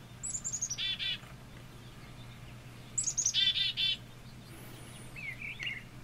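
Black-capped chickadee giving its chick-a-dee call twice, played back from a recording. Each call is a few thin, high notes falling in pitch, then a run of buzzy 'dee' notes.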